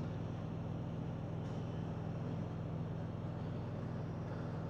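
Steady low hum with a faint background hiss.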